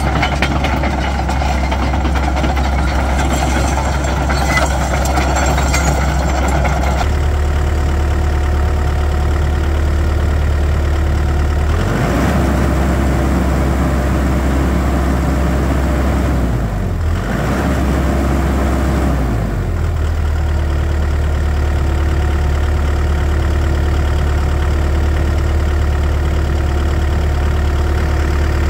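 Komatsu PC138US-10 excavator's four-cylinder diesel engine running steadily, heard up close at the open engine compartment. For the first several seconds there is busier mechanical noise over the engine note.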